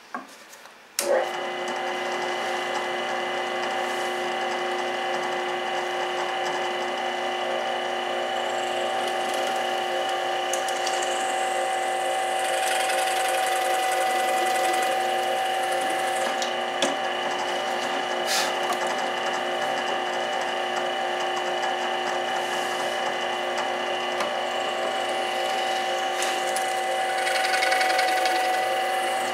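Benchtop drill press switched on about a second in and running steadily with a whine. Its bit bores into the end of a wooden spar, and the cutting noise swells twice, in the middle and near the end.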